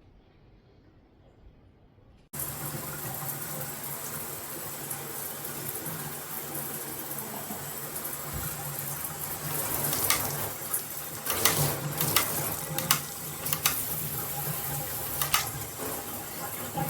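Handheld shower head switched on about two seconds in, water spraying with a steady rush and a faint high whistle; from about halfway through, the spray spatters unevenly with sharp clicks and knocks.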